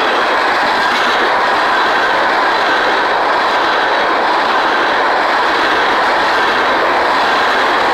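Empty oil tank cars of a freight train rolling past at close range: a loud, steady rush of steel wheels on rail.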